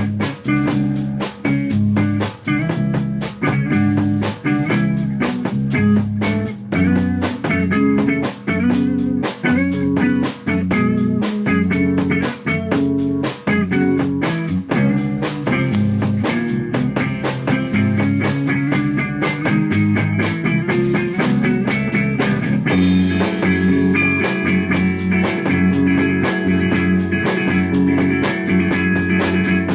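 A rock band playing the song with guitar, bass and drums to a steady, driving beat. About two-thirds of the way through, the texture shifts and higher notes are held longer.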